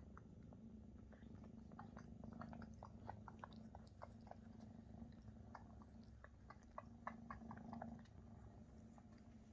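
Faint, steady purring from Maine Coon kittens as they nurse, with many small irregular clicks of suckling mouths.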